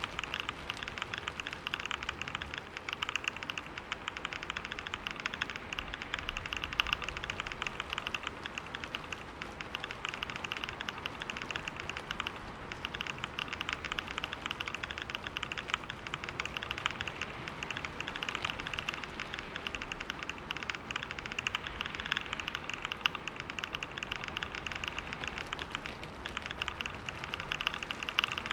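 Computer keyboard being typed on fast and without a break, a dense run of key clicks at about 125 words a minute.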